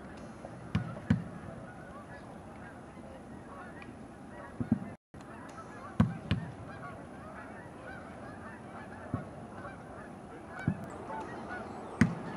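A flock of geese flying over, honking, with many calls overlapping. Through it come about eight sharp thumps of footballs being kicked, the loudest about six seconds in and near the end. The sound cuts out completely for a moment about five seconds in.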